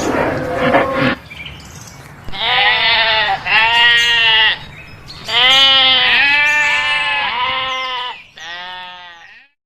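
A goat or sheep-like farm animal bleating: about six wavering bleats in a row, the last one fainter, after a rougher noisy sound in the first second.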